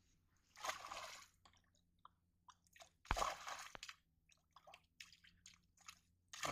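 A hooked tilapia thrashing at the surface among water hyacinth, splashing in irregular bursts. The longest come about half a second in and about three seconds in, with quicker small splashes after them and a sharp splash near the end.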